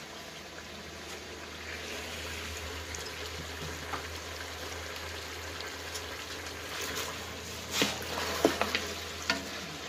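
Chicken and pequi frying in a large aluminium pot, a steady sizzle. Near the end, a few knocks from a spoon stirring the pot.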